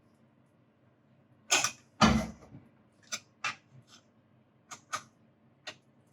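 Kitchen spoon knocking and clinking against the bowl and frying pan while scooping pancake batter: about eight sharp knocks at uneven intervals, the loudest about two seconds in with a dull thud.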